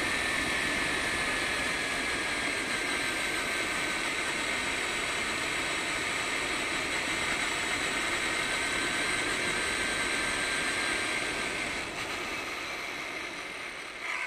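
Large RC monster truck's motor and drivetrain whining at speed over tyre noise on the road, picked up by a camera mounted on the truck; the whine falls slightly in pitch. The sound eases off about twelve seconds in, and there is a brief jolt near the end as the truck runs into weeds.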